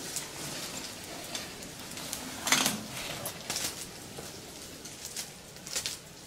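Short scrapes, knocks and clinks of a caver climbing down over rough limestone rock with a rope and gear, the loudest scrape about two and a half seconds in.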